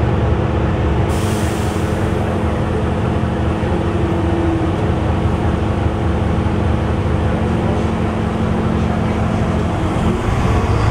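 Scania-engined Alexander Dennis Enviro400 double-decker bus heard from inside the lower saloon while moving at speed: the diesel engine and drivetrain run steadily under road noise, and the engine note drops about ten seconds in.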